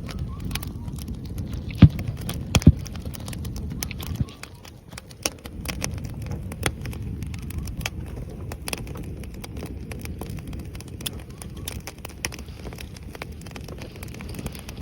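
Oak firewood burning: a steady low rush of flames with frequent sharp crackles and pops, two especially loud cracks about two seconds in.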